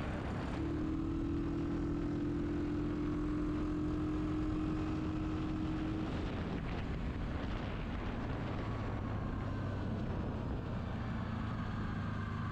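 A 2019 Suzuki KingQuad 750 ATV's single-cylinder engine pulls through its CVT with a steady, unchanging note while the quad speeds up to about 50 mph. About six seconds in the note drops away to a lower one as the throttle is let off and the engine brakes the quad, over a constant rush of wind and tyre noise.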